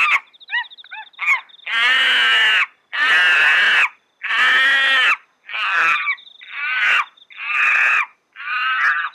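Monkey calls: three short rising hoots, then a run of loud, drawn-out screeching calls, about one a second.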